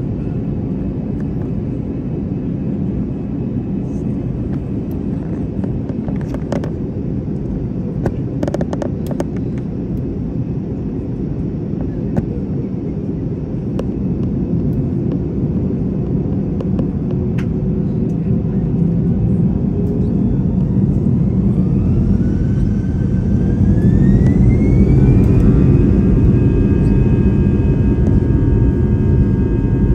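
Airbus A320 turbofan engines heard inside the cabin over the wing: a steady low rumble at low power with a few faint clicks, then from about twenty seconds in the engines spool up. A whine rises in pitch over several seconds and settles into a steady high tone, louder, as takeoff power is set and the takeoff roll begins.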